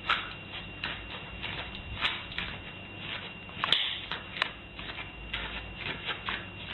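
Light, irregular clicks and taps, roughly two a second, over a faint steady high-pitched whine.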